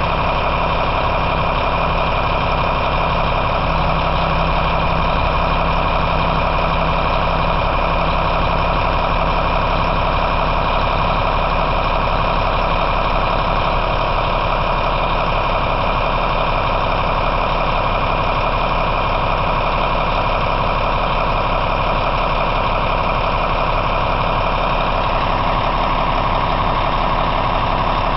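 Volvo A30F articulated dump truck's diesel engine idling steadily while the truck stands still.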